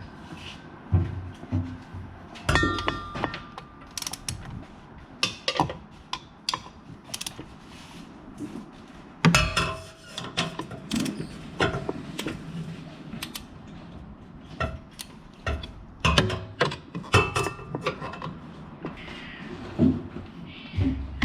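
Hand tools and metal parts being handled: irregular clanks, clicks and knocks, some ringing briefly like struck steel.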